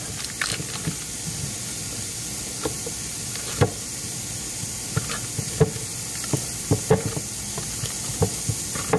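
Steady sizzle of diced peppers, onions and andouille sausage frying in a skillet, with about a dozen irregular sharp pops.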